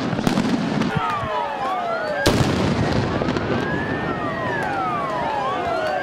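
Several sirens wailing, their rising and falling tones overlapping, starting about a second in after a moment of crowd noise. About two seconds in, a single sharp bang cuts through, typical of a stun grenade going off.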